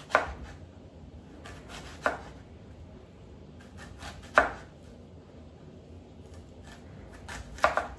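Kitchen knife slicing an onion thinly by hand, the blade knocking on the cutting board at each cut: four sharp knocks about two seconds apart, the last one doubled.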